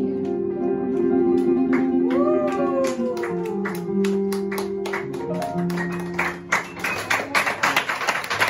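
Grand piano and guitar letting the final chord of a jazz ballad ring and fade, with one note bending up and sliding slowly down about two seconds in. Scattered claps build into audience applause in the last second or so.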